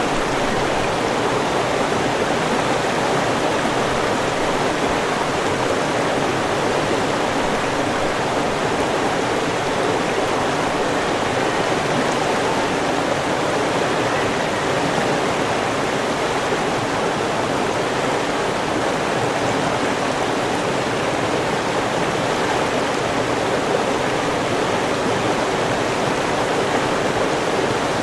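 River water flowing, a steady rushing noise that holds even throughout.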